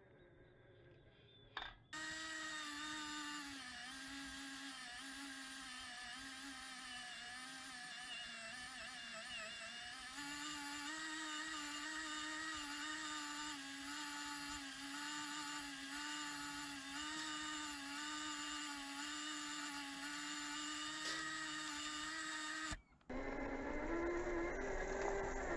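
Electric motor and gearbox whine of a scale RC tow truck pulling a loaded trailer, heard close up from a camera mounted on the truck. The whine is steady, wavering slightly in pitch with the throttle; after a brief break near the end it returns, rising in pitch.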